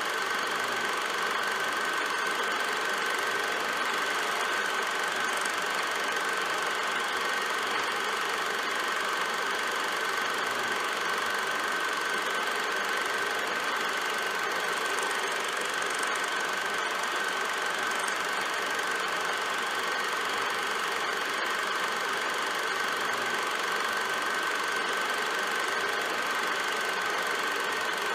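Film projector running: a steady mechanical whirr with a constant high tone.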